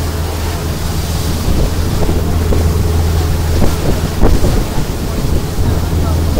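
Tour boat's engine running with a steady low hum under wind rushing on the microphone and water noise, with some louder buffeting about four seconds in.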